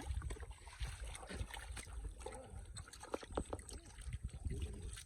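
Shallow water splashing and sloshing in short, irregular bursts, as from hands and feet working through a flooded field.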